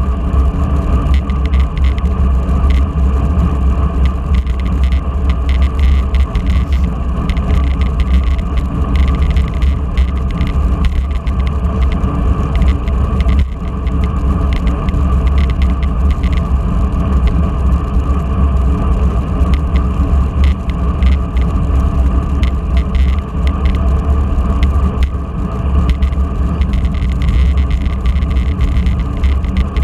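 Wind rushing over the microphone of a camera riding on a road bicycle in a group ride: a loud, steady rumble with road and tyre noise mixed in.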